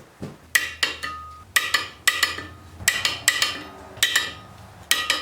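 Sharp metal-on-metal knocks, about fifteen, often in close pairs, each ringing briefly. They come from steel tools working on the steel knife and drum of a wood chipper while the knife is seated and fastened.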